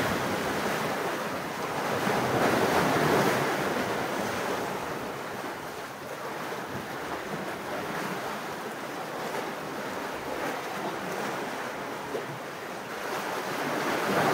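Sea surf and wind: an even rushing noise that swells and eases over several seconds.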